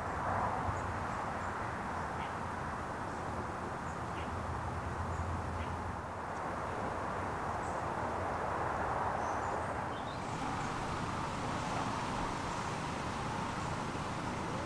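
Steady outdoor background noise with a few faint, brief bird chirps; the hiss turns brighter about ten seconds in.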